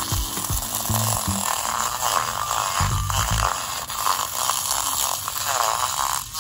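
A battery-powered handheld milk frother whirs as its spinning whisk churns instant coffee and sugar in a mug. Its pitch wavers as the whisk moves through the mixture.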